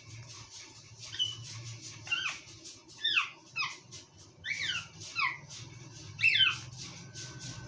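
A small animal giving about eight short, squeaky calls, each falling sharply in pitch, in quick clusters of one to three, over a faint steady low hum.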